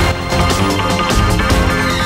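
TV talk show's break music starting suddenly and loudly, with a steady beat and held bass notes.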